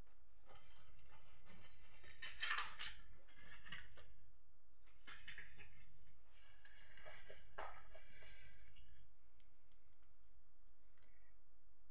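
Rustling and handling noises in three bursts as makeup items are rummaged through, followed by a few light clicks near the end.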